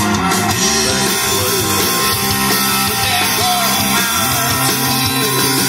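Live rock band playing electric guitar, bass and drums, amplified through QSC CP12 powered PA speakers.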